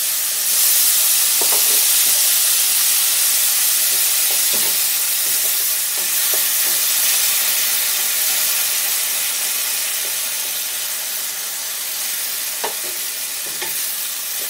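Hot mustard oil sizzling loudly in a metal karai as a little water is poured onto poppy-seed paste and tomatoes. The sizzle starts suddenly and eases off slowly while a wooden spatula stirs, with a few light knocks of the spatula against the pan.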